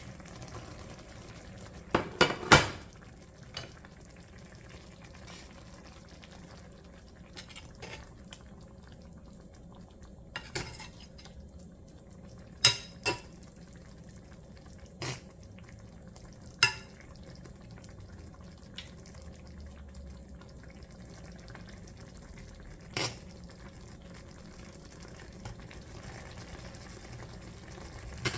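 A utensil knocking and scraping against a pot as salmon is stirred into a simmering coconut curry, over the quiet bubbling of the pot. The loudest knocks come in a quick cluster about two seconds in, then single knocks every few seconds.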